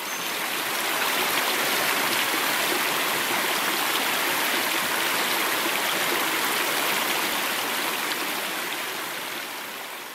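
Shallow creek running over rocks: a steady rush of babbling water that fades out gradually near the end.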